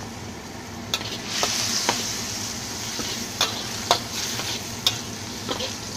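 Minced mullet sizzling in a wok while a metal spatula stirs it, scraping and knocking against the pan roughly once a second. The sizzle swells about a second and a half in.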